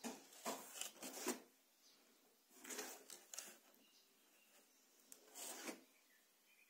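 Cardboard box and plastic wrapping being handled: short, soft bursts of rustling and rubbing, several in the first second and a half, then a few more around three and five and a half seconds in.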